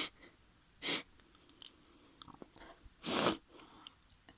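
A woman sniffling with a tickled nose, with short sharp breaths drawn in through the nose as a sneeze builds: three bursts, the third, about three seconds in, the loudest and longest.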